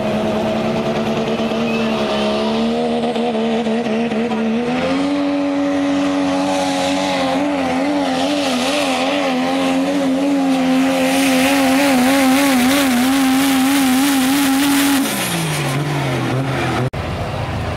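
Diesel pickup truck pulling a sled at full throttle. The engine is held at high revs and steps up in pitch about five seconds in, its revs wavering up and down under load, then drops away as the driver lets off near the end. The sound cuts off abruptly just before the end.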